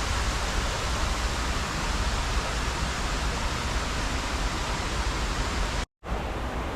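Steady rushing noise of a shallow river flowing, broken by a split-second dropout near the end.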